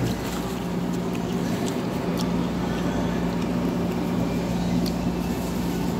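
Steady low machine hum with a constant tone, with a few faint clicks on top.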